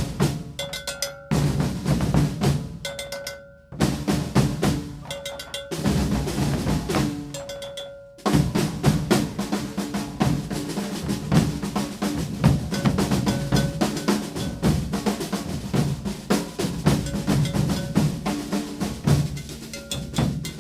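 Maracatu percussion ensemble of bass drums and snare drums playing a maracatu rhythm. Short phrases broken by pauses come first; about eight seconds in, the whole group settles into continuous drumming.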